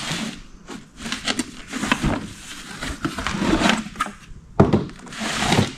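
Cardboard box and parts packaging being handled: irregular rustling with a few light knocks.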